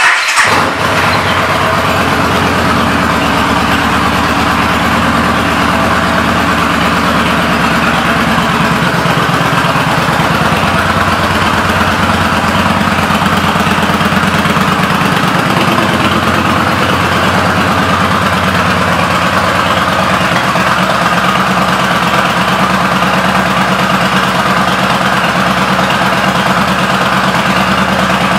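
2014 Yamaha Stryker's 1304 cc air-cooled V-twin, fitted with Vance & Hines aftermarket pipes. It comes in suddenly with a sharp burst at the start, then runs at a steady idle.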